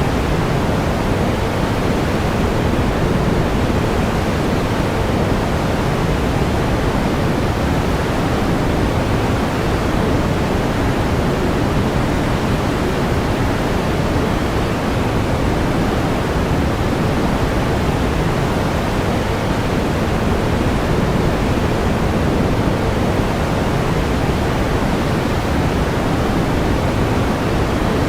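Steady pink noise: an even, unchanging hiss with more weight in the low end than the high.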